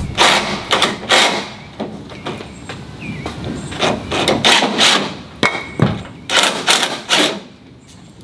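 DeWalt cordless driver run in short, irregular bursts, driving lag screws through a steel mounting bracket into sheet-metal building trim, with metallic knocks. The lag screws are not gripping in the thin sheet metal.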